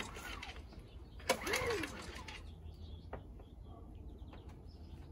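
Recoil starter of a Champion 2000-watt inverter generator pulled once about a second in: a sharp snap, then a whirr that rises and falls in pitch as the engine turns over on full choke without catching. The end of an earlier pull trails off at the very start, and a single small click follows later.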